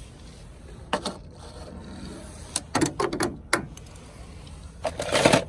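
A small toy car clattering on a hard plastic slide: a few scattered clicks and knocks, then a short rush of noise near the end.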